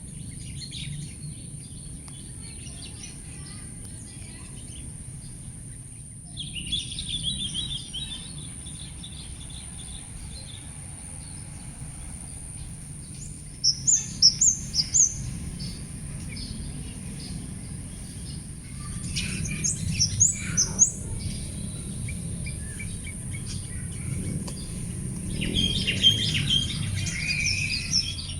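Songbirds chirping and calling in short bouts of quick high notes, including a run of about four sharp notes a little past the middle. A steady high hiss and a low rumble run underneath.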